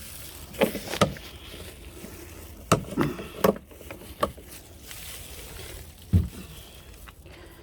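Irregular knocks and clunks of a diesel can and filler pipe being handled and shifted about, about seven separate bumps over a low steady background.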